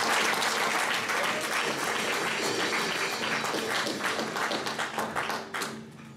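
Congregation applauding, many hands clapping together; the clapping dies away near the end.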